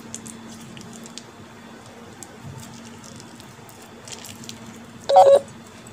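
Thick curd squeezed from a plastic pouch onto soya chaap pieces in a steel bowl: faint squishing and small wet plops. About five seconds in, a brief, loud, high-pitched sound cuts in.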